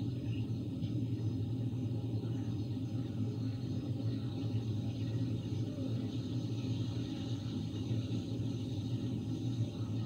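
Steady low hum with a faint hiss, unchanging throughout, with no speech: background noise on a phone call while the line sits silent.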